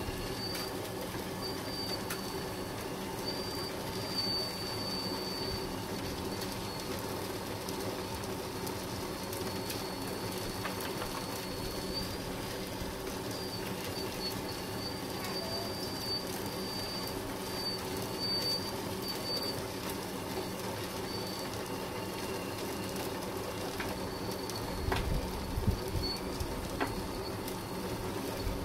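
Lesu PC360 1/14-scale RC hydraulic excavator running: its hydraulic pump and motors give a steady hum while a thin high whine cuts in and out as it slews and works the arm. A cluster of knocks and thumps comes near the end as the bucket reaches the trommel.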